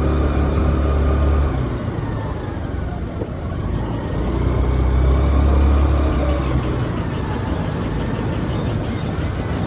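A vehicle's engine running with a low rumble and road noise; the rumble is heavier for the first second and a half and again from about four to six seconds in.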